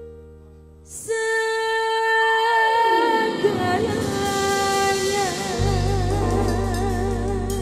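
Female dangdut vocalist singing a long held opening line that turns to a wide vibrato, backed by a live band. Keyboard notes lead in, the singing starts with a loud hit about a second in, and deep bass joins a little past halfway.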